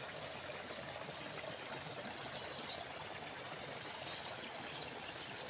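Steady trickle of water running in a small concrete roadside irrigation ditch, with a faint high insect buzz.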